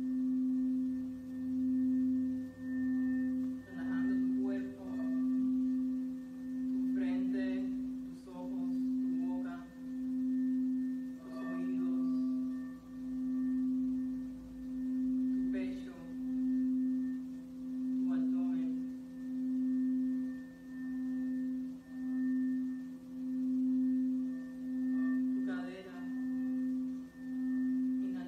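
Red crystal singing bowl being rimmed with a mallet. It gives one sustained, steady low tone with fainter overtones, swelling and dipping in a wavering pulse about every two seconds.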